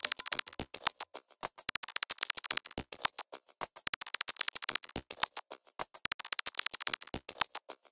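Glitchy electronic music made of a dense, irregular stream of sharp clicks and crackles, with no steady tones.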